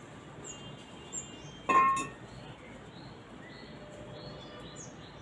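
A single bright clink about two seconds in that rings on briefly, like a struck chime, over small birds chirping with short high downward notes.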